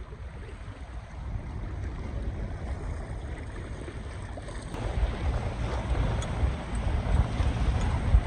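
Wind buffeting the microphone over water rushing along a sailboat's hull while underway. The wind rumble grows stronger and gustier about five seconds in.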